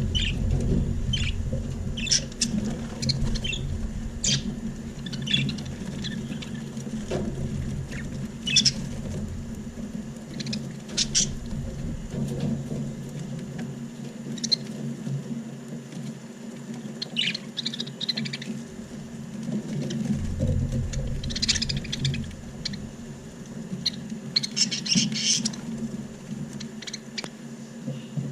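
Budgerigars chirping in short, scattered calls, with clusters about 8, 11, 17 and 25 seconds in, over a steady low hum.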